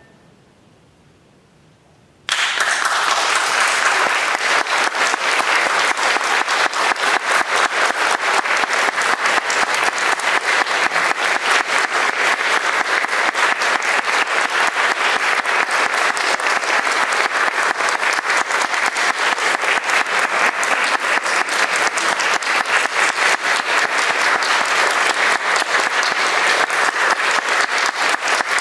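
A short hush, then audience applause starts suddenly about two seconds in and goes on steadily.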